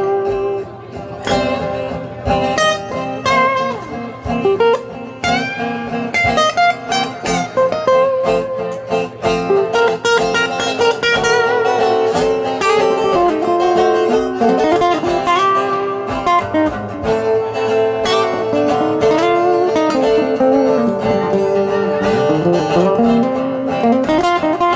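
Two acoustic guitars playing the instrumental break of a slow blues: picked lead lines full of bent notes over a steady accompanying guitar.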